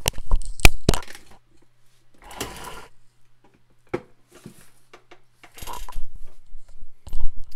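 Handling noise at a workbench: a quick run of sharp clicks and clatter of small tools and parts, loudest just under a second in. Then brushing rustles, a single knock about four seconds in, and more rustling and clatter near the end.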